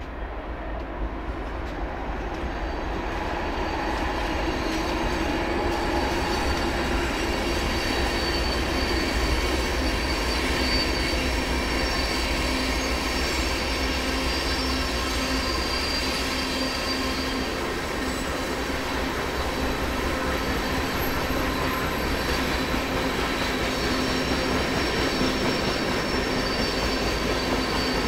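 Freight train of grain hopper cars rolling steadily over a steel girder bridge, the noise building over the first few seconds and then holding, with a thin high wheel squeal above it.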